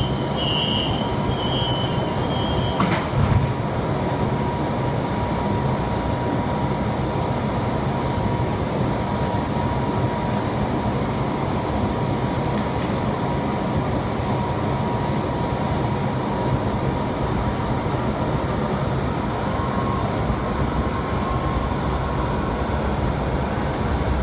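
Inside a Beijing subway car standing at a platform: a short run of beeps at the start, a single knock about three seconds in, then the car's steady hum and rumble. Near the end the train starts to pull away, with a faint whine coming in.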